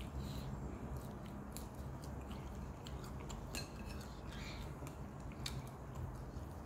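A person chewing and eating rice by hand from a plate, with scattered small clicks and mouth noises, over a steady low hum.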